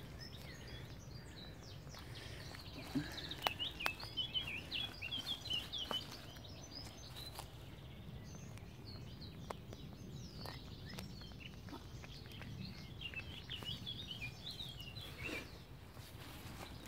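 Rustling and crackling in dry straw as a cat noses and moves about, with two bouts of quick high chirps, a few seconds in and again near the end.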